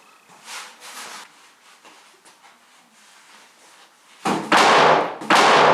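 Faint handling sounds in a workshop, then, about four seconds in, two loud bursts of rushing, hissing noise with a short gap between them.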